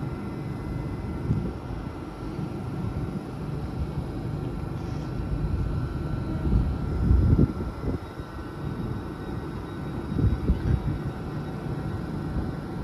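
Station background of idling diesel multiple units: an uneven low rumble with a few faint steady whining tones above it. Wind gusts on the microphone make the rumble swell now and then.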